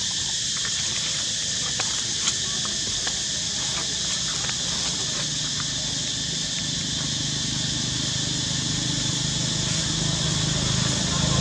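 Steady high-pitched insect chorus in the forest, with a few soft clicks. A low motor hum grows louder in the last few seconds.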